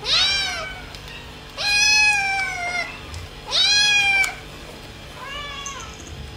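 A kitten meowing four times in a high voice. Each call rises and falls in pitch. The second call is the longest and loudest, and the last is fainter.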